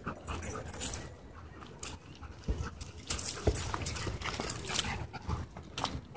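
Several dogs running and playing together: scattered thumps and short dog sounds, with no sustained barking.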